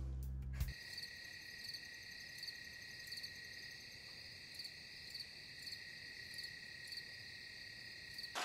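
Crickets chirping: a faint, steady high trill with a brighter pulse about every half second. The last low notes of a music cue cut off within the first second.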